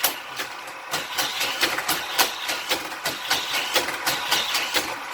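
Hot Wheels Corkscrew Crash track set running: its battery-powered motorized boosters whirring steadily, with many irregular clicks and clatters as a die-cast car speeds around the plastic track.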